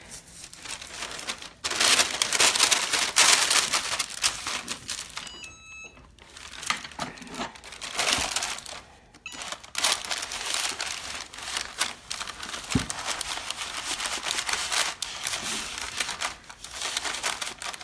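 Parchment paper rustling and crinkling in irregular stretches as it is handled and pressed over a towel.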